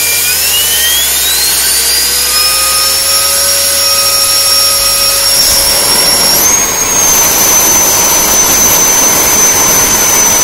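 Schübeler electric ducted fan running up to speed with a loud rush of air and a whine that rises in pitch over the first several seconds. The whine jumps higher about six and a half seconds in and then holds steady at full power as the fan blows through a carbon-fibre thrust reverser, producing reverse thrust.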